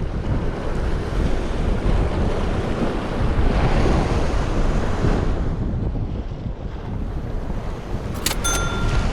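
Sea waves washing against the rocks, swelling louder about halfway through, with wind buffeting the microphone. Near the end comes a short double click with a brief ringing tone.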